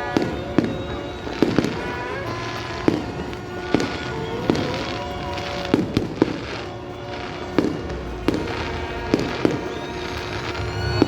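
Fireworks going off in a display, about fifteen sharp bangs at irregular intervals of half a second to a second, with music playing underneath.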